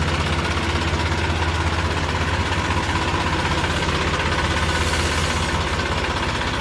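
Massey Ferguson 245 DI tractor's three-cylinder diesel engine running steadily, with an even, fast low pulse.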